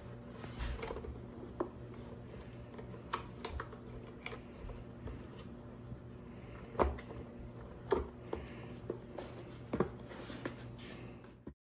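Scattered clicks and knocks of battery-case parts being handled and fitted together during reassembly, over a steady low hum; the sharpest knocks come about seven, eight and ten seconds in, and the sound cuts off abruptly just before the end.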